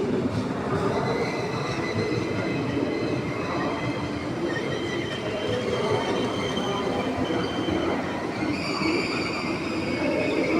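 DB class 412 ICE 4 electric train running on the rails, with a steady rumble and a high, steady squeal of several tones that sets in about a second in and grows louder near the end.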